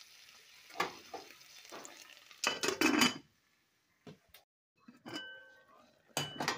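Shell-on shrimp sizzling as they brown in a metal pot, a wooden spatula stirring and knocking against the pot, with a loud clatter about two and a half seconds in. The sizzling falls away a moment later, and a couple more knocks come near the end.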